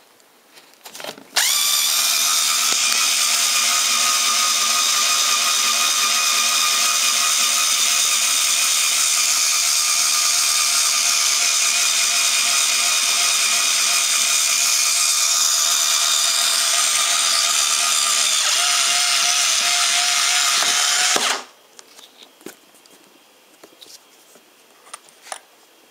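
Bosch IXO cordless screwdriver motor starting suddenly just over a second in and running at a steady speed for about twenty seconds. Its tone shifts slightly a few seconds before it cuts off.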